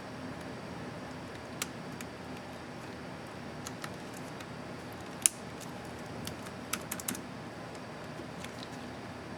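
Scattered small plastic clicks from a laptop keyboard's Enter keycap and its clips being fitted and pressed, about nine in all, the sharpest a little over five seconds in, over a steady hiss.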